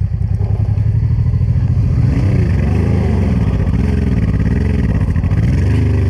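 Honda Transalp 600's V-twin engine pulling hard under load up a steep, loose rocky climb, its revs rising and falling several times as the throttle is worked.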